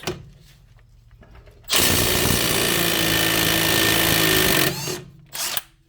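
Milwaukee M12 Fuel half-inch right-angle impact wrench hammering for about three seconds, breaking a fastener loose with ease on a full battery, then a short second burst near the end.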